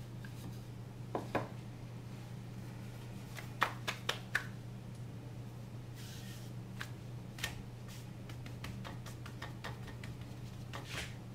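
Wooden rolling pin and hands working kulcha dough on a marble board: scattered light clicks and knocks, a few in quick succession around the first four seconds, with a brief soft rustle about six seconds in as the dough is lifted. A low steady hum runs underneath.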